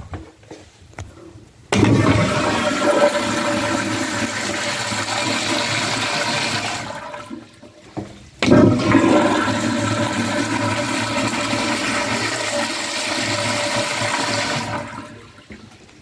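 Sloan flushometer valve on a commercial toilet flushing twice. Each flush starts with a sudden rush of water that runs about six seconds, then tails off as the valve closes. The second flush starts about eight and a half seconds in.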